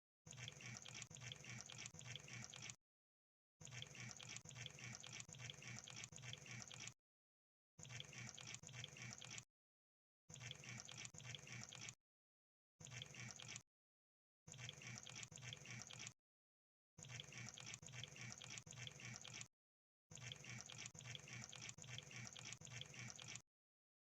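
Crab sound effect: rapid clicking and crackling in runs of one to three seconds, about eight of them, each broken off by a short silent gap.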